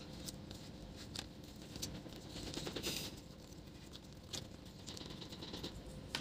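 Faint clicks and scratches of a plastic pry tool working the metal side bracket off a laptop's LCD panel, with a short scraping sound about three seconds in.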